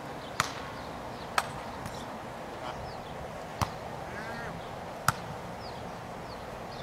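Volleyball being struck by players' hands and forearms: four sharp slaps, a second or two apart, during a rally.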